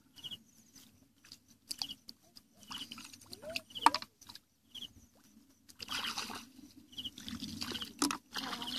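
Hands splashing and sloshing in shallow muddy paddy water in short, irregular bursts, with sharp clicks and one loud knock about four seconds in.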